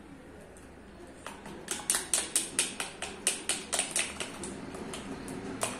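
A quick run of sharp clicks, about five a second, for roughly three seconds starting about a second in, with one more click near the end: a steel pot knocking against a red plastic mesh strainer as thick blended papaya shake is poured through it.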